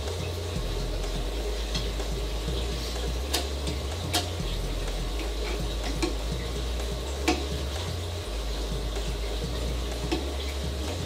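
Background music with a steady bass line, over a handful of light clicks and knocks from the Gryphon diamond wet band saw's plastic housing being handled and fitted back onto its base.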